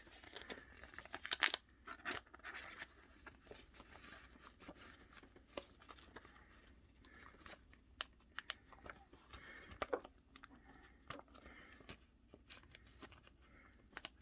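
Paper and cardstock being handled and pressed together at a craft table: scattered light rustles, taps and clicks, with a louder rustle about a second in.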